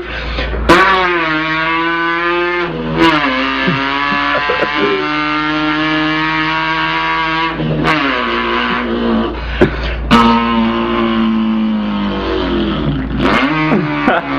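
A boy imitating an import car's engine with his voice: a held, buzzing engine note that drops sharply in pitch at each gear change, several times, as if the car is accelerating through the gears.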